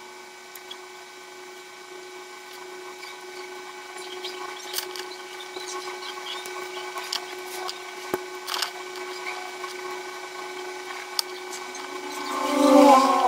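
Small clicks and scrapes of side cutters prying a thin metal shielding can off a phone's circuit board, over a steady low hum, with a louder grating scrape near the end.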